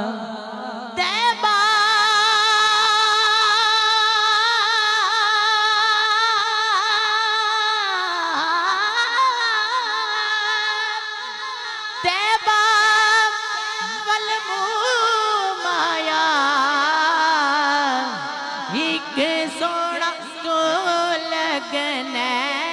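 A young man singing a naat into a microphone: long, ornamented held notes with heavy vibrato and slow pitch glides, without words.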